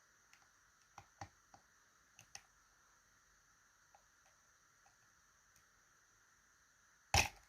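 Faint scattered clicks of picks working the pins of a TESA T80 dimple lock, then a little before the end one loud sudden clack as the last pin sets and the plug turns open.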